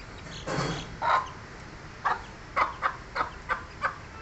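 Chickens clucking in short, irregularly spaced calls around a spinach feed bowl, with a brief scuffing noise about half a second in.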